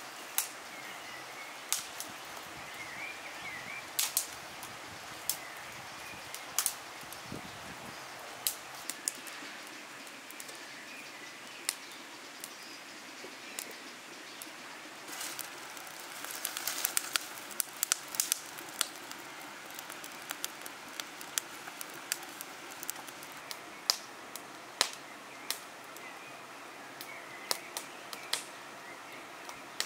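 Rural outdoor ambience: a steady hiss with a few faint bird chirps and many sharp, scattered clicks, thickest about halfway through.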